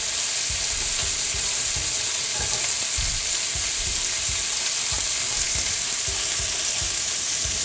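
Hot oil sizzling steadily in a frying pan, an even hiss with scattered small crackles and pops.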